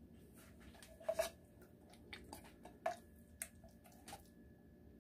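Faint clinks and scrapes of a spoon against a metal pot, a handful of separate knocks, two of them with a brief ring, as beans are scooped out.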